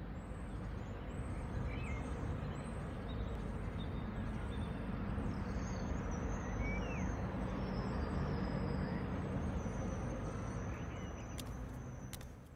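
Outdoor ambience: a steady low rumble like distant traffic with small birds chirping repeatedly over it, fading in at the start and out near the end.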